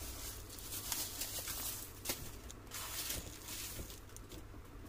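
Rustling and crinkling of packaging waste being gathered up and handled, with small irregular taps.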